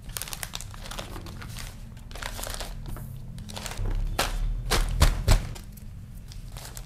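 Plastic packaging crinkling and rustling as it is handled, with two sharp knocks in quick succession about five seconds in.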